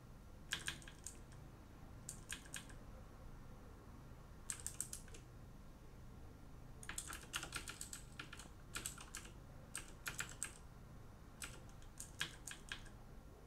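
Typing on a computer keyboard in short bursts of keystrokes with pauses between them, and the longest run of typing past the middle.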